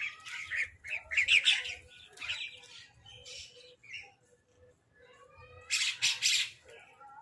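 Crows cawing and squawking harshly in bursts, loudest about a second in and again near the end, with a short lull between.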